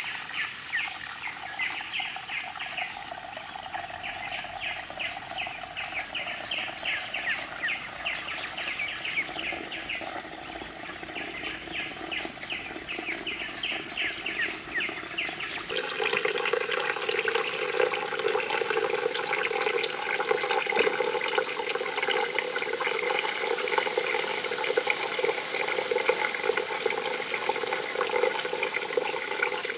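Small stream of water falling from a bamboo spout onto stones into a pond, a steady trickling splash. A rapid, high chirping runs over it in the first half; about halfway through the water suddenly becomes louder and closer.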